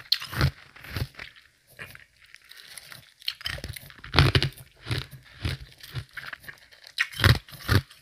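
Semi-melted ice being chewed close to the microphone, with medium-soft crunches in quick bursts. The chewing pauses for about a second and a half around two seconds in, then resumes steadily.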